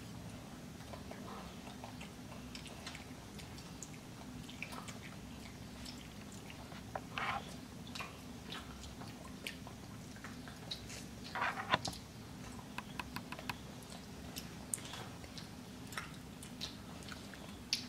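Children chewing and biting breaded chicken nuggets close to the microphone: soft wet mouth clicks and smacks, with a few louder ones about seven and twelve seconds in, over a steady low hum.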